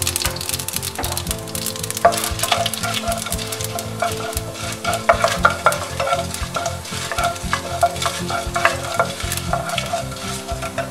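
Mustard seeds and urad dal sizzling and crackling in hot oil in a nonstick pan, the seeds spluttering as a South Indian tempering (tadka) cooks. From about two seconds in, a wooden spatula scrapes and stirs them around the pan.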